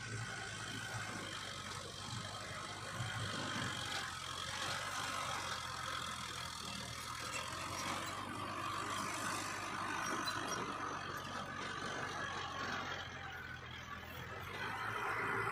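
Diesel engines of heavy earthmoving machinery, dump trucks and a bulldozer, running steadily, with a low hum under a hiss of engine and track noise.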